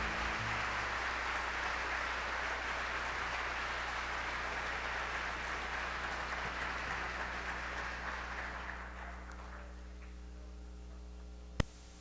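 Audience applause, steady and then fading out over about two seconds, over a low electrical hum; a single sharp click just before the end.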